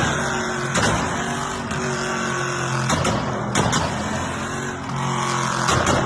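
Turbocharged Mercedes-AMG V8 running at low, fairly steady revs, with several sharp pops from the exhaust.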